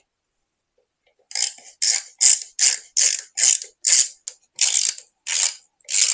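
A ratcheting screwdriver clicking in short rasping bursts, two to three a second, starting just over a second in, as it backs out a Phillips screw.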